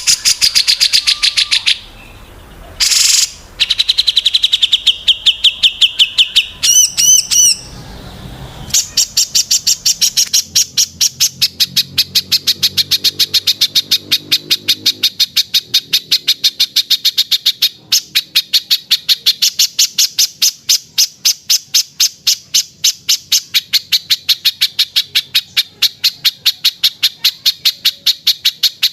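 Small songbirds chirping and trilling: short high trills and a whistled phrase, then from about nine seconds in a fast, unbroken run of sharp chirps repeating about five times a second.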